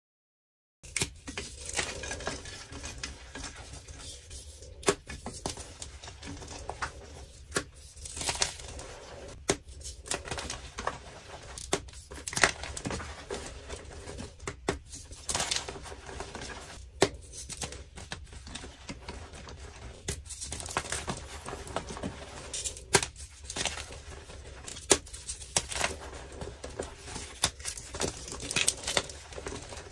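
Hands crushing and crumbling blocks of dyed gym chalk, starting about a second in. A dry, crunchy crumbling sound runs throughout, with frequent sharp snaps as pieces break apart.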